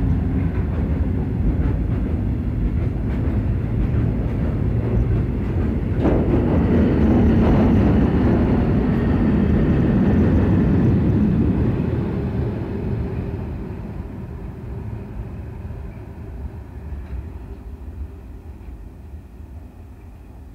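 Diesel train running past: a loud low rumble that swells about six seconds in, then fades away over the last several seconds as it draws off.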